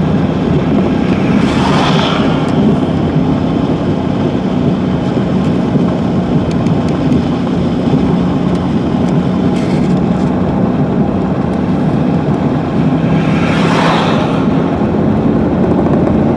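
Car driving on snowy roads, heard from inside the cabin: a steady engine and road drone. Two brief swells of hiss rise over it, one about two seconds in and one about thirteen seconds in.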